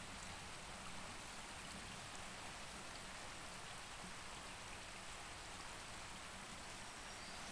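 Faint, steady rush of a creek flowing.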